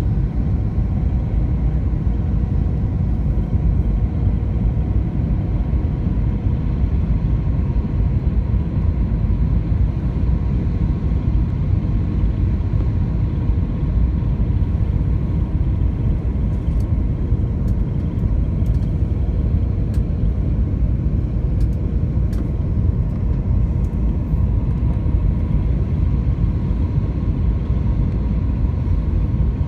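Steady cabin noise of an Airbus A320-200 on approach, heard from inside the cabin: a constant low rumble of engines and airflow with a faint steady hum over it.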